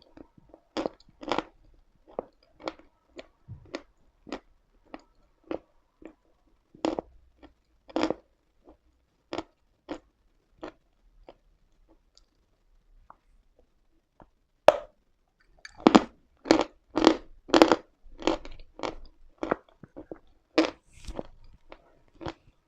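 Chalk being bitten and chewed close to the microphone: crisp separate crunches about one or two a second, a few seconds' pause, then a sharp bite followed by a quicker run of louder crunches.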